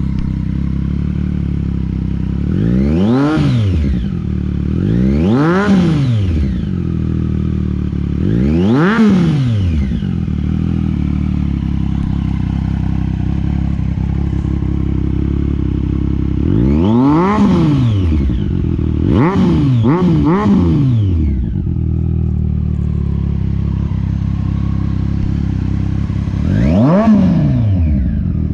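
Triumph Street Triple 765's inline three-cylinder engine, breathing through a Toce Performance slip-on exhaust without its optional baffle, idling loudly and blipped seven times. Each rev shoots up in pitch and drops straight back to idle, three of them in quick succession about two-thirds of the way through.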